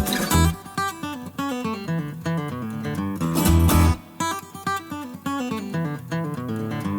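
Background music: an acoustic guitar picking a melody of quick plucked notes.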